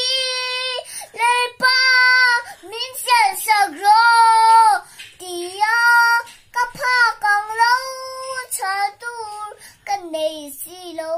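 A three-year-old girl singing unaccompanied in a high voice, holding long notes between short breaks for breath.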